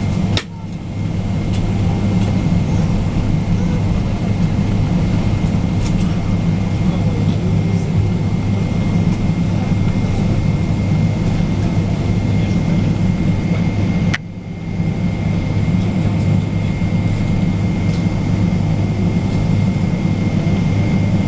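Boeing 777-200ER engines and airframe heard from inside the passenger cabin: a steady low drone with a thin high tone above it. The level drops sharply and briefly twice, about half a second in and again about fourteen seconds in.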